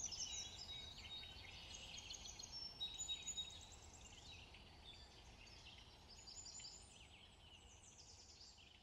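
Birds chirping, many short high calls overlapping, gradually fading out.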